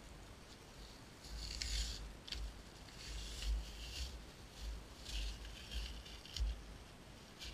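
Skin being torn off a bull huss (a dogfish), starting about a second in: a run of short rasping, tearing pulls, about half a dozen, with a dull low rumble under each.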